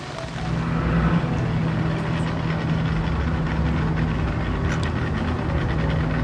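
An engine running steadily at low revs, a constant low hum with a rumble beneath, growing louder in the first second.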